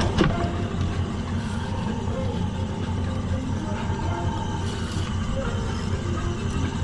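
Steady low rumble of a fishing boat's motor running, with a brief falling sweep just after the start.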